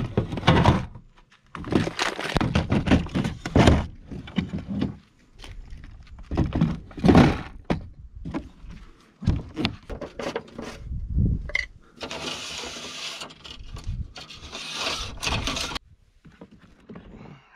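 Irregular thunks, knocks and scrapes of gear being handled and loaded into a kayak. About twelve seconds in there is a steady hiss that lasts a few seconds and then stops abruptly.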